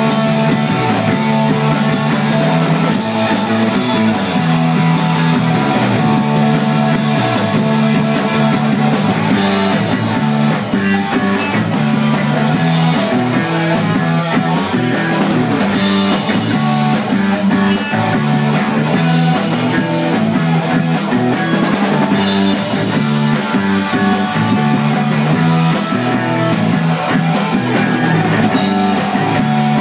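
Live rock band playing loudly and without a break: distorted-sounding electric guitars over a drum kit keeping a steady beat.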